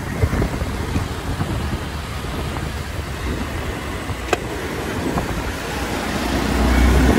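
Riding noise from a Hero XPulse motorcycle moving through city traffic: a steady rumble of its engine, road and wind, with the surrounding vehicles mixed in. A single sharp click about four seconds in, and the low rumble grows louder near the end.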